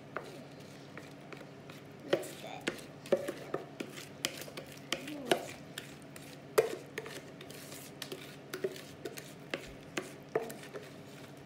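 Wooden spoon scraping and knocking against a plastic mixing bowl while scooping out a sticky rice-puff mixture: irregular sharp taps and clicks, a few with a short hollow ring, over a steady low hum.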